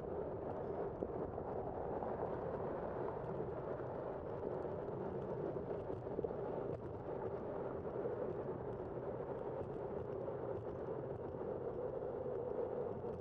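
Steady rushing noise of a moving bicycle: wind on the microphone and tyres rolling on asphalt, holding an even level throughout.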